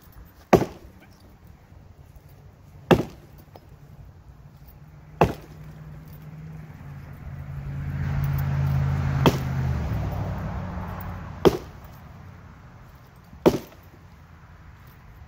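Axe chopping into a fallen tree branch: six sharp blows, about two seconds apart. In the middle, the hum and rush of a passing vehicle swells and fades.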